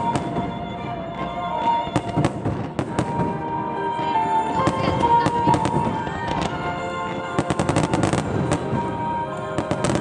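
Fireworks going off: a steady run of sharp bangs and crackles, with a quick volley of reports about three-quarters of the way through, heard over music.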